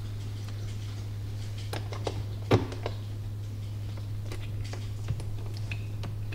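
Light metal clicks and taps of a bolt, washer and support bracket being hand-fitted to a golf cart's roof strut, with one louder knock about two and a half seconds in. A steady low hum runs underneath.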